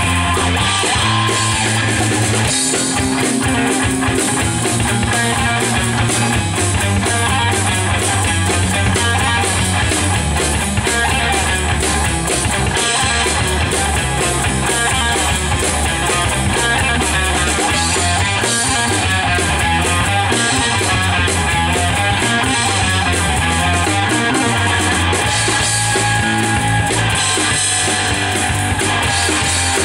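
Rock band playing live: electric guitar and electric bass over a drum kit, steady and loud, with no singing.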